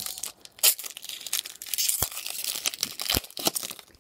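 Foil wrapper of a Pokémon trading card booster pack crinkling and tearing as it is opened by hand, with a few sharp crackles along the way.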